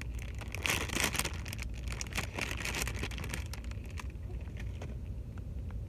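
Clear plastic zip-top bag crinkling as hands pull it open, in irregular crackles that stop about four seconds in. A steady low car-cabin road rumble runs underneath.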